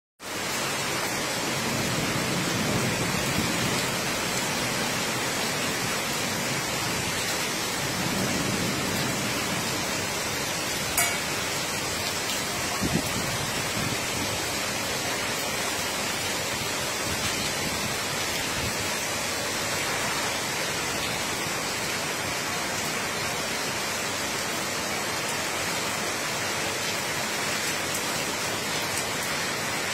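Torrential downpour: heavy rain pouring down in a steady, dense hiss, with a single sharp click about eleven seconds in.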